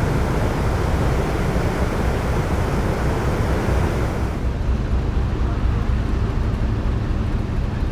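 Steady low rumble and rush aboard a ferry under way at sea: wind across the microphone over the ship's engine and sea noise. The higher hiss thins out about halfway through.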